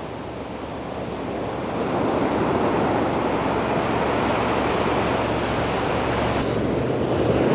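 Ocean surf washing up the beach, a steady rushing that swells about two seconds in.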